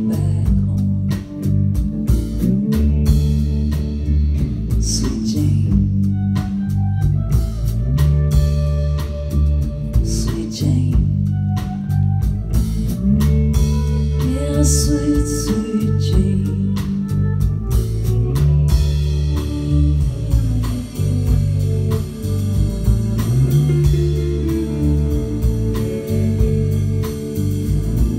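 Live band playing: a repeating electric bass line under a drum kit and acoustic guitars, at a steady beat.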